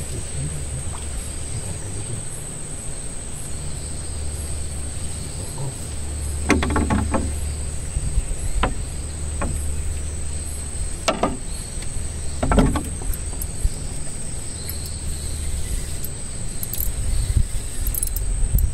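A steady low hum of a small running engine under a continuous high insect trill, with a few short knocks and rattles in the middle.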